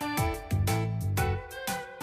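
Upbeat background music with plucked notes over a bass line, in a steady rhythm.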